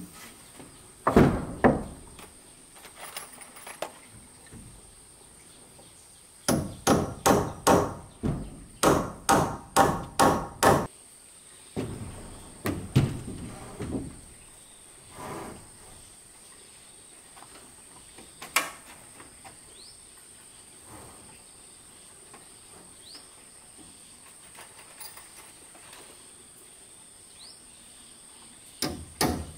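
A hammer driving nails into wooden boards: a couple of blows, then a fast run of about a dozen in four seconds, then scattered single blows with a long pause, and the hammering starts again near the end. A steady high insect drone runs underneath.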